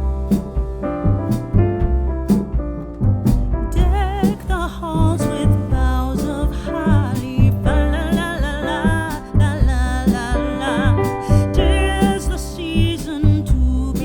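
Background music: a keyboard and bass intro, with a singer's voice coming in about four seconds in and carrying on over the accompaniment.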